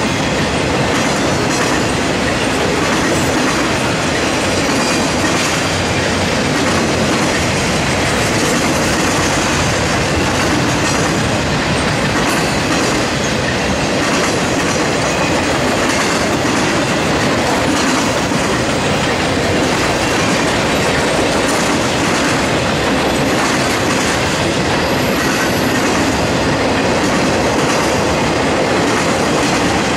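Freight train of loaded flatcars rolling steadily past: a continuous loud rush of steel wheels on rail with clatter over the rail joints.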